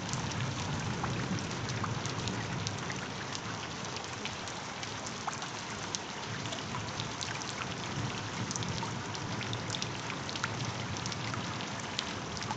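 Steady rain-like ambience: a constant hiss with many small drop ticks scattered through it and a low rumble underneath.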